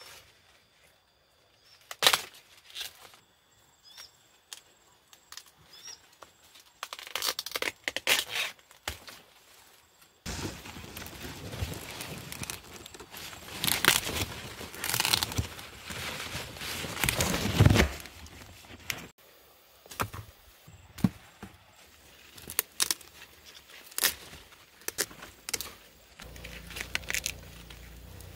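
Corn plant leaves rustling and crackling while ears of baby corn are snapped off the stalks by hand. Scattered sharp snaps come first, then a long stretch of rustling in the middle, then more snaps.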